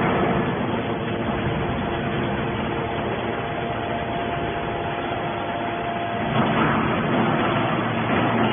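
Hydraulic metal-shavings baler running: the steady hum of its hydraulic pump and motor, with a steady whine over it. About six seconds in the sound changes and gets a little louder.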